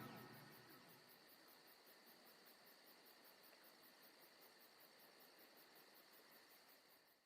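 Near silence: the last trace of the music fades out within the first second, leaving only a faint steady hiss with a faint high, evenly pulsing tone.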